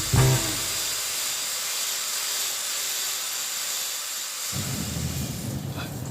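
Pencil (die) grinder running steadily at high speed, a high hiss with a faint steady whine.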